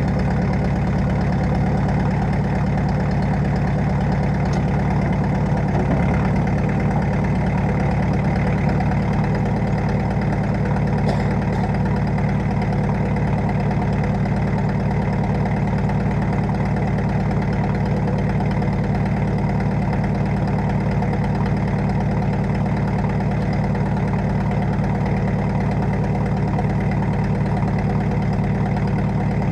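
John Deere 2010 loader tractor's four-cylinder engine running steadily at an even, unchanging speed.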